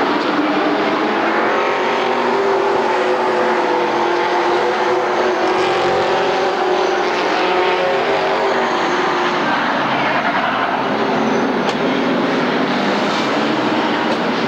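A pack of stock cars racing around an oval track, several engines running loud and steady at once, their overlapping notes shifting slightly in pitch.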